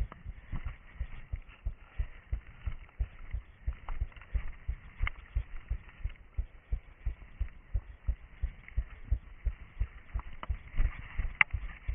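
Footfalls of an orienteer moving over forest ground, a steady low thudding about three a second, picked up through a body-worn camera. A couple of sharp clicks come midway and near the end.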